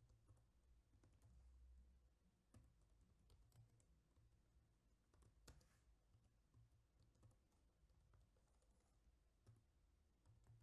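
Faint computer keyboard typing: irregular, scattered key clicks.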